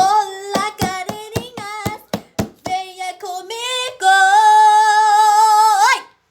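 A high voice singing a short sung intro: held notes broken by sharp clicks in the first half, then one long steady note that bends up in pitch just before it cuts off.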